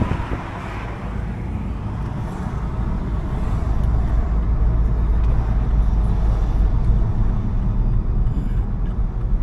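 Car driving in town traffic, heard from inside the cabin: a steady low engine and road rumble. It grows louder over the first few seconds, then holds.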